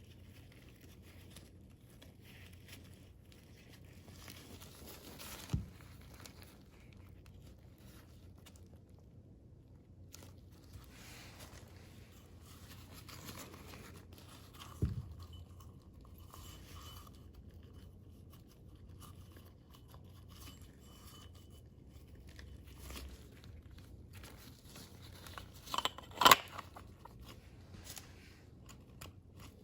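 Quiet handling and scraping of small oil-filter parts, with a single knock about 5 seconds in, another about 15 seconds in, and a quick cluster of sharper clicks about 26 seconds in.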